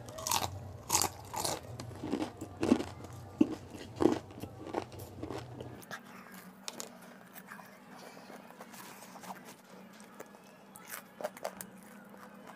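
Crunchy bites into a fried samosa's pastry crust, then chewing: loud crunches about twice a second for the first five seconds, then softer, scattered chewing.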